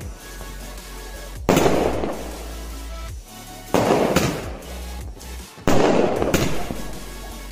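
Multicolour aerial firework cake of 1-inch shells firing shot after shot: three sharp bangs about two seconds apart, each trailing off over a second or so.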